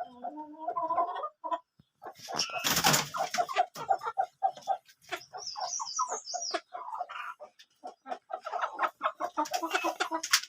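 Chickens clucking, many short calls overlapping, with a loud harsh burst about two and a half seconds in and a run of high chirping calls around the middle.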